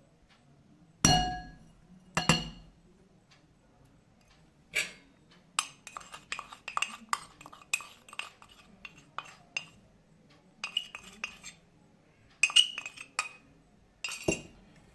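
Two loud ringing clinks of a utensil or cup against a mixing bowl, then a long run of irregular lighter clinks and taps against the bowl, with one more loud clink near the end.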